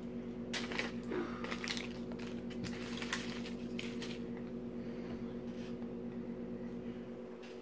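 Small plastic toys and wrappers being handled on a table: a few short crinkles and clicks in the first four seconds, then quieter handling, over a steady low hum.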